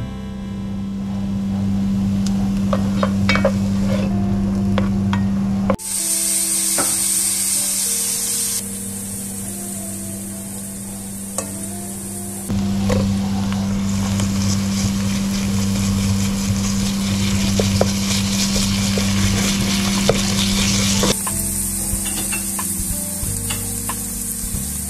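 Diced onion, then minced beef, sizzling as they fry in oil in a nonstick pan, with a silicone spatula stirring and scraping against the pan. A steady low hum runs under much of it and stops and restarts at the edits.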